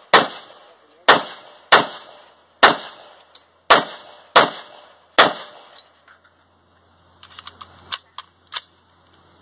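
AR-15 rifle firing seven shots at a steady pace, roughly one a second, each a sharp crack with a short echoing tail. After the last shot come a few fainter clicks and knocks near the end.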